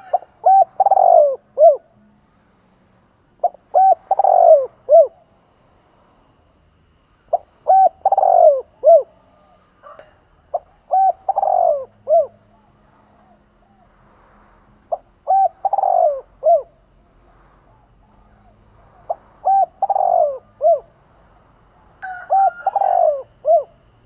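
Spotted dove cooing its song, a caged decoy bird's call used to lure other doves: seven phrases about every three to four seconds, each two or three short coos, a longer falling coo and a short closing coo.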